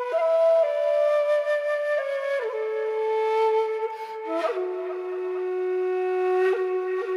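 Xiao, a vertical bamboo flute, playing a slow solo melody of held notes that steps downward, settling on a long low note from about four and a half seconds in.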